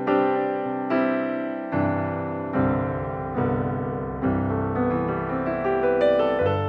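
Background piano music: slow, evenly paced notes struck a little more than once a second, each ringing and fading before the next.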